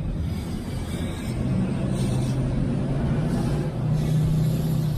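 Engine of a 2012 2500HD pickup truck running as the truck pulls away, a steady low hum heard from inside the cab over road noise.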